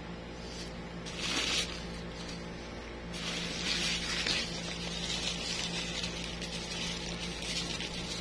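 Paper towel rustling and scratching as a newborn kitten is rubbed in it: a short burst about a second in, then steady rubbing from about three seconds on.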